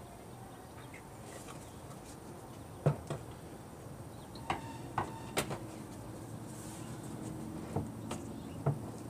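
Plastic air filter housing of a BMW 328i being handled and set back into the engine bay: a string of short, sharp plastic knocks and clicks, about eight of them, from about three seconds in to near the end.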